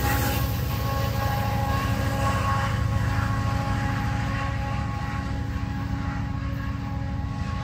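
BNSF diesel-electric locomotive at the rear of a coal train moving away: a steady engine drone with a constant whine that slowly fades as it recedes.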